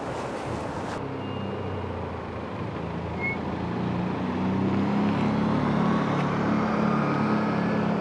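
A motor vehicle's engine running steadily, a low hum that grows louder about halfway through, as if coming closer. Wind on the microphone is heard in the first second.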